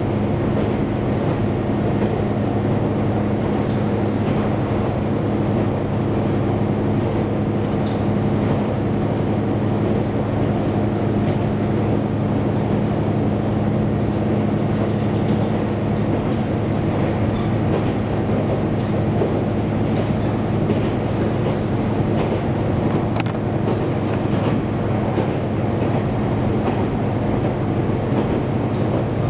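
Diesel railcar running along the track: a steady engine drone with rail and wheel noise and a few faint clicks.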